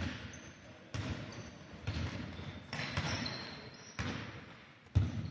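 Basketball dribbled on a hardwood court, about one bounce a second, each bounce echoing around a large hall.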